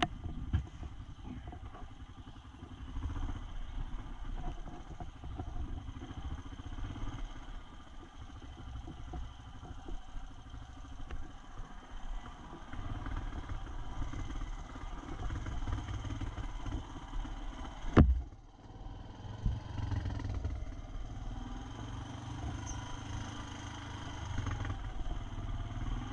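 ATV engine running at low speed as the four-wheeler rides over a rough dirt trail. A single sharp knock about two-thirds of the way through is the loudest sound, with a smaller one shortly after.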